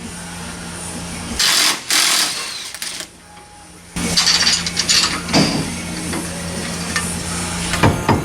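A power tool runs in short bursts on the rear axle nuts, with a loud burst about a second and a half in and busier running and metallic clicks from about four seconds on.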